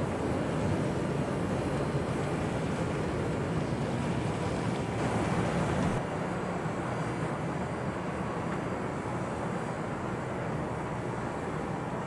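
Steady low engine rumble of a ship under way, easing slightly about six seconds in.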